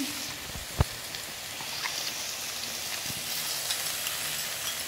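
Beef and vegetables sizzling steadily on a grill pan over a portable gas stove, with scattered small crackles. One sharp tap a little under a second in is the loudest sound.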